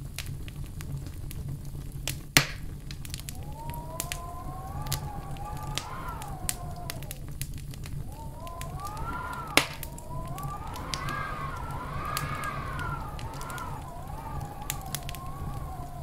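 Wood fire burning in a fireplace, crackling with frequent small snaps and two loud pops, one about two seconds in and one just past the middle. Through most of it a wavering whistle rises and falls.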